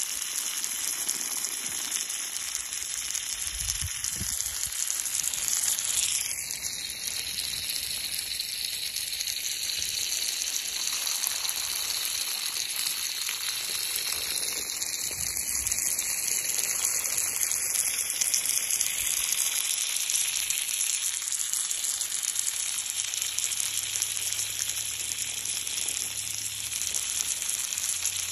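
Water from a hose spraying steadily onto a leopard and the grass: a continuous hiss and spatter of the jet.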